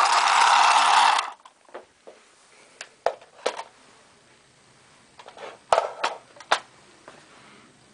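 Battery-operated tin toy space car running with a loud, dense rattle from its motor and popping-noise mechanism, which cuts off suddenly about a second in. Then come scattered sharp clicks and knocks of the tin body being handled.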